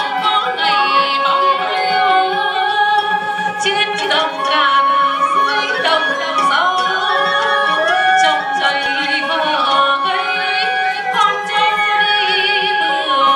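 Live traditional Vietnamese water puppet theatre music: a small instrumental ensemble playing with a sung melody. The melody lines step and glide, and waver near the end.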